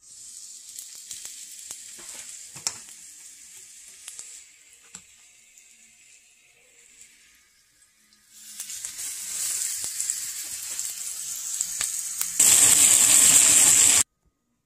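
Spice-rubbed chicken pieces sizzling in hot oil in a stainless steel frying pan as they are laid in, with a few small clicks. The sizzling dies down briefly, builds again from about eight seconds in, jumps louder near the end, then stops abruptly.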